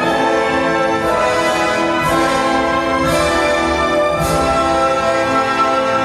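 Orchestral ballet music with sustained pitched lines, marked by four bright struck accents about a second apart.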